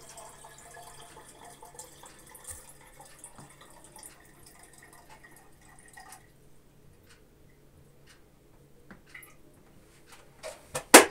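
Faint dripping water for the first few seconds, then quiet with a few light clicks, and a sharp, loud knock near the end.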